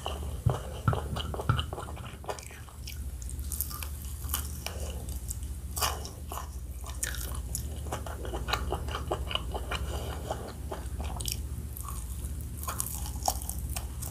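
Close-miked eating of crispy fried chicken: crunchy bites into the fried coating and chewing, heard as a run of irregular crackles and clicks.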